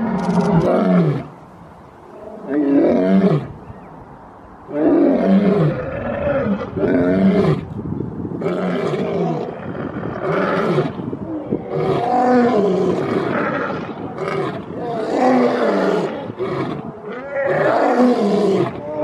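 Male lions roaring: a series of deep roars, each about a second long and falling in pitch. The first few roars have pauses between them; from about eight seconds in, two lions roar together almost without a break.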